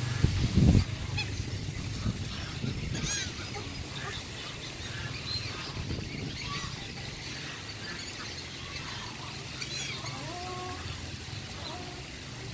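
Mixed waterfowl calling: geese honking and ducks calling in short scattered calls, with a couple of rising honks near the end. A brief low rumble about half a second in is the loudest thing.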